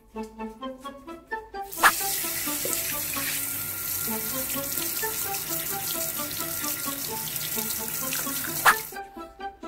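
Water spraying steadily from a handheld shower head to rinse soap off a small dog in a sink. The spray starts about two seconds in and stops near the end, with a click as it starts and another as it stops.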